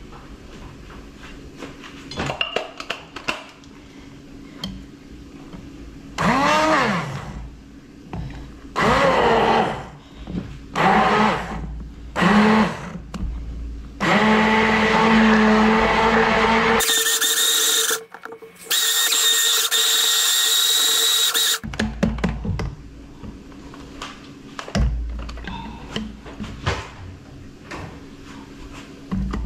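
Immersion blender run in several short bursts in a plastic jug of soaked grain and water, its motor pitch rising as it starts and falling as it stops. Near the middle it runs without a break for about seven seconds, churning the mix into a batter.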